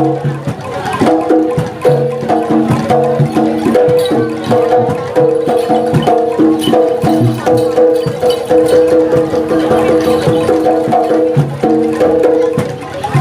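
Live jaranan (kuda lumping) accompaniment of traditional East Javanese music: pitched metal percussion playing a repeating melodic pattern over steady drum and wood-block strokes, loud and continuous.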